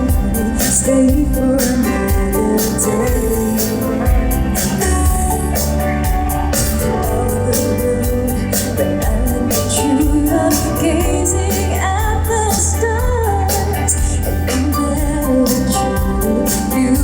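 A woman singing a pop song live over accompaniment with a steady beat and a heavy bass.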